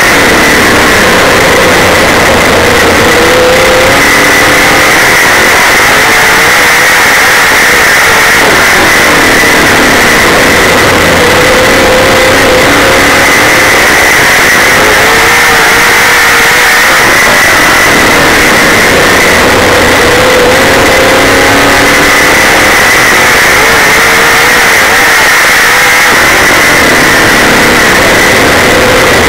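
Super late model dirt track race car's V8 engine at racing speed, heard from inside the car: a loud, continuous roar whose pitch climbs and drops every several seconds as the throttle goes on down the straights and comes off into the turns.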